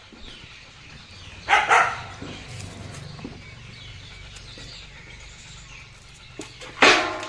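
Golden retriever barking: a quick double bark about a second and a half in, then a single louder bark near the end.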